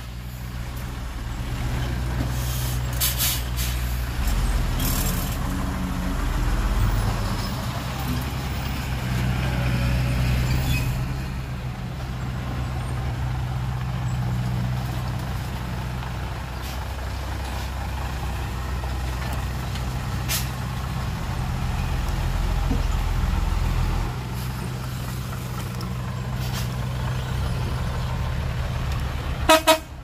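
Diesel engine of heavy earthmoving machinery running steadily, with a few short knocks. A brief loud sound comes right at the end.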